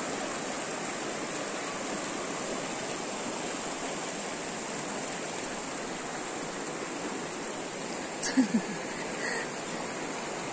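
Shallow rocky river rushing steadily over stones and through small rapids, with three quick thumps about eight seconds in.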